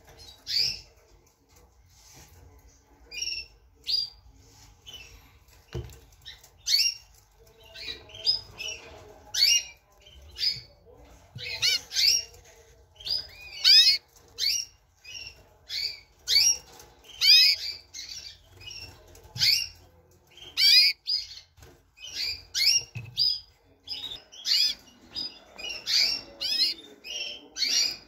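Domestic canaries calling: short, sharp chirps, many with quick sweeps up or down in pitch, repeated every second or so and coming thicker from about eleven seconds in.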